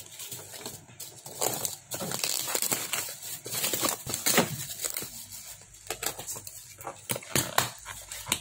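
Thin plastic courier mailer bag crinkling and tearing as it is pulled off a cardboard box, then cardboard rustling with a handful of sharp snaps in the second half as the box is opened.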